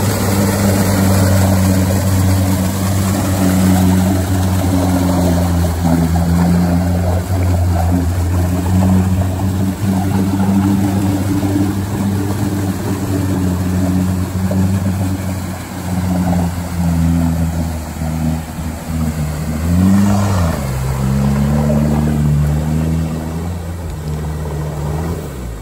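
Sherp all-terrain vehicle's Kubota diesel engine running steadily as the vehicle crawls through deep mud. About twenty seconds in the engine revs up and back down, then settles at a lower pitch.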